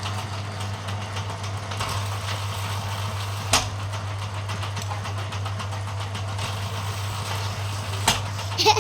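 Bamboo thinning machine running with a steady low hum, with two sharp knocks, one about three and a half seconds in and one about eight seconds in.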